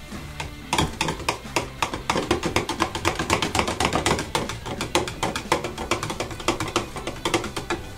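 Spoon stirring cold-process soap batter in a plastic pitcher, working a drop of charcoal colorant into the batter. It makes rapid, even clicking and scraping strokes, several a second, starting about a second in.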